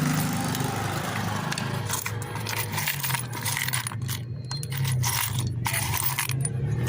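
Metallic clinking and rattling, many short clicks from about two seconds in, over a steady low motor hum.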